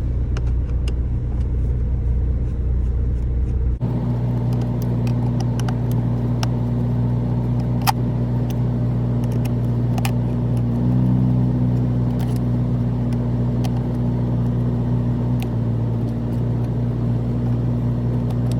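A steady low hum like an idling engine, changing abruptly about four seconds in, with scattered light clicks and taps from screws and plastic console trim being worked on.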